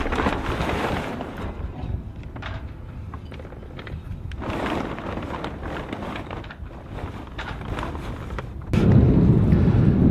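Wind buffeting the microphone in uneven rumbling gusts, getting a step louder and steadier near the end.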